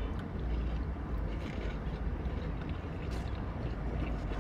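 Steady low rumble of a car heard from inside the cabin.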